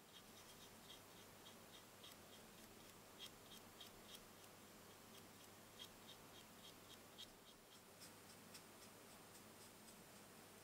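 A fine paintbrush dabbing on the small plastic parts of a scale model kit, making faint, quick light ticks in runs of several a second.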